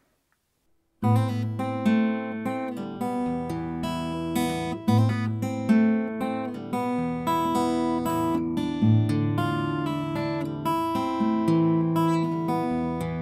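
Background music on acoustic guitar, plucked and strummed, starting about a second in after a moment of silence.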